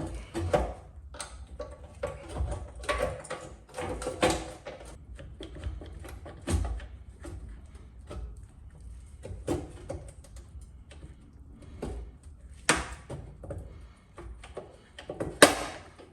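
Irregular knocks and clanks of parts and tools being handled during car body work, with two louder knocks near the end.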